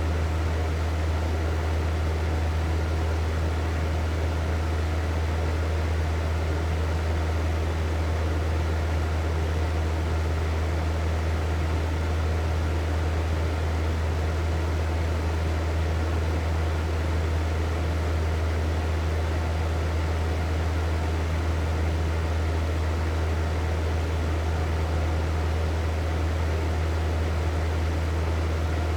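Hair dryer running steadily: a strong low motor hum under an even rush of blown air.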